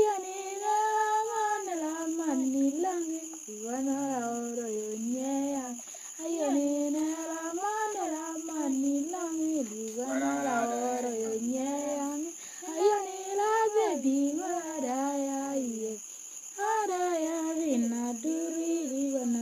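A young female voice singing an Otuho (Lotuko) song alone, with no instruments, in melodic phrases broken by short pauses, about six seconds in, near twelve seconds and at sixteen seconds.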